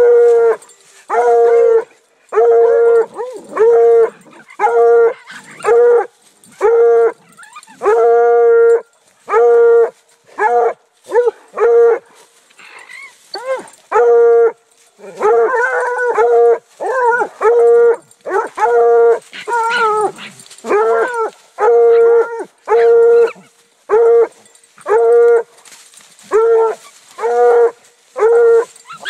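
Bluetick coonhound bawling over and over at a raccoon, about one drawn-out bawl a second. Between about 15 and 20 seconds in, other wavering hound voices overlap it.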